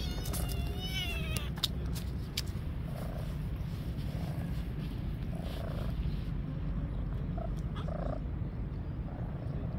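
Stray kittens being stroked: a steady low purr close up, with one meow that rises and falls about half a second in and a few short, faint mews later.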